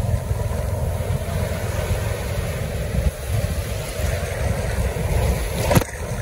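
Ocean surf breaking and washing around a phone held at water level: a loud, steady rush of water with a deep rumble. A brief sharp hit near the end.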